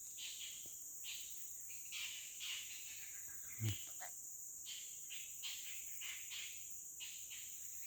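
Forest insect chorus: a steady high-pitched drone, with short chirping calls repeating irregularly about every half second, and one brief low voice-like sound a little over three and a half seconds in.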